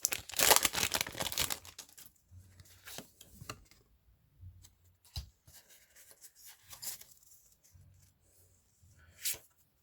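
Pokémon TCG booster pack's foil wrapper being torn open in a loud rip over the first second and a half, followed by faint rustling and handling of the cards, with a brief louder rustle near the end.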